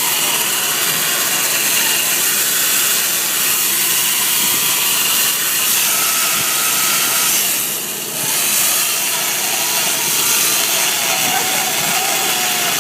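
Electric chainsaw cutting into a block of ice, running steadily with a shrill hiss and a faint motor whine, easing off briefly about eight seconds in.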